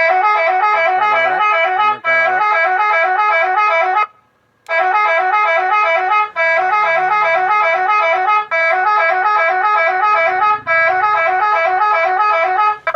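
Electronic multi-tone horn playing a quick melodic tune through a horn loudspeaker. The notes run in short phrases that repeat about every two seconds, with a brief break about four seconds in.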